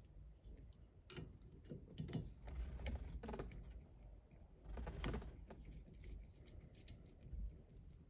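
Faint, scattered small metal clicks and scrapes of a screwdriver working at a steering wheel's centre hub, fitting the clip that holds the horn wire.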